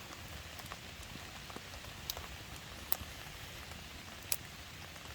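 Steady light rain falling in woodland, a soft even hiss, with a few sharp drips or ticks scattered through it.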